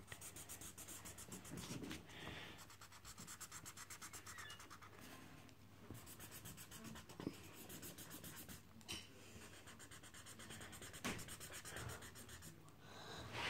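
Yellow marker scribbling on paper as a drawing is coloured in: soft, rapid back-and-forth scratching at about five strokes a second.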